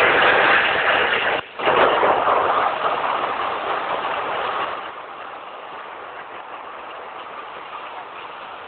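Steady mechanical noise of brewery plant machinery. It is loud for about the first five seconds, with a brief drop about a second and a half in, then settles to a lower, even level.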